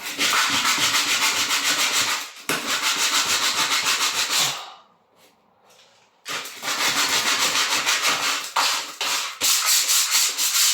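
Rough sanding on wood in two long spells of several seconds each, with a brief pause in the first and a silent gap of about a second and a half between them.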